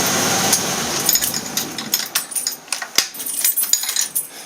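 Steady engine running noise fading out about a second in, followed by an irregular string of sharp metallic clicks and clinks.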